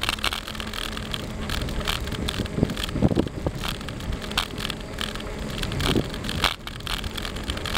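Bicycle rolling over rough, patched asphalt: tyres on the road surface with the bike rattling and clicking over the bumps, and wind on the microphone. A louder bump about three seconds in.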